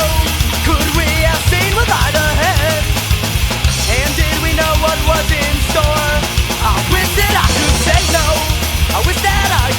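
Punk rock band recording playing loud: drum kit, distorted electric guitars and bass, with a melody line riding over them.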